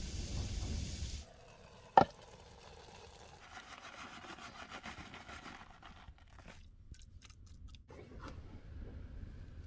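Cooking sounds on a small canister gas stove. A hiss stops suddenly about a second in, and a single sharp clack comes a second later. Then a plastic bag of shredded cheese rustles as it is poured into a pan, and a metal pot lid gives a few light clinks.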